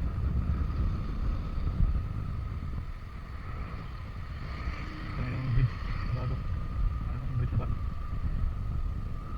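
Suzuki Avenis 125 cc scooter running along on the road, its engine and drive giving a steady thin whine over a rumble of wind and road noise on the microphone.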